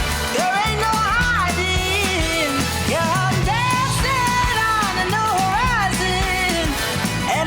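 Pop song playing: a sung vocal line gliding between notes over a steady low accompaniment.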